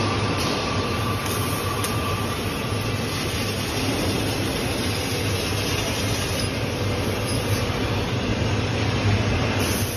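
Laser tube cutting machine running while cutting square steel tubing: a steady hiss of cutting noise over a constant low machine hum.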